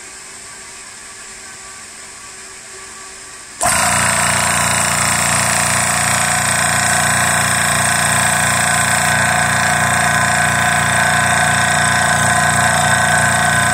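Hill EC-3000 electric high-pressure air compressor starting up abruptly about three and a half seconds in, then running loud and steady with a fast rhythmic pumping pulse, near the top of a fill at around 240 bar. Before it starts there is only a faint steady hum.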